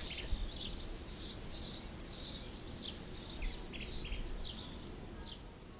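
Small birds chirping: a quick run of short, high chirps, each sliding down in pitch, growing sparser and fainter towards the end.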